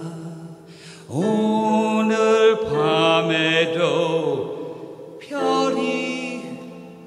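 Piano chords under a voice singing a wordless melodic line in two phrases of long held notes that scoop up as they begin, about a second in and again about five seconds in.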